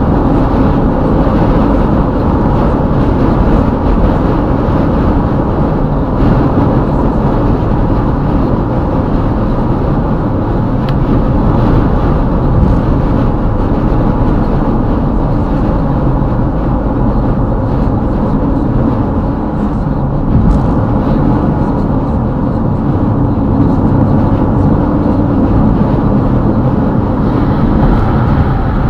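Steady road and tyre noise of a car driving at highway speed, heard from inside the cabin, with no breaks or sudden sounds.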